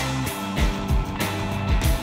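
Music with a steady beat.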